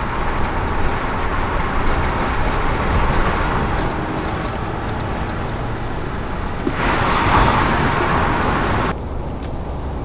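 Road, tyre and engine noise of an Audi A5 driving at expressway speed, heard inside the cabin. The noise grows to a louder hiss for about two seconds near the end, then drops abruptly.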